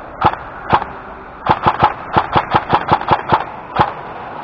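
Airsoft gun fired in quick semi-automatic shots, a series of sharp cracks. Two single shots come first, then a rapid irregular string of about six a second, then one last shot near the end.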